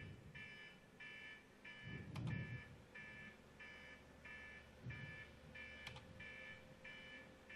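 Near silence: room tone with a faint high-pitched pulsing, about three pulses a second, and a faint steady hum.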